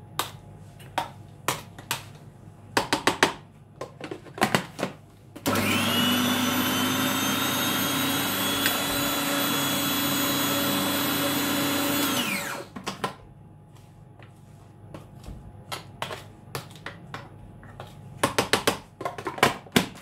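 A Bosch kitchen food processor grinding soaked beans into thick akara batter. The motor starts suddenly with a steady, high whine, runs for about seven seconds, then spins down with a falling pitch. Before it starts, a spoon knocks and scrapes against the plastic bowl, and plastic clicks and knocks come near the end as the lid and pusher are handled.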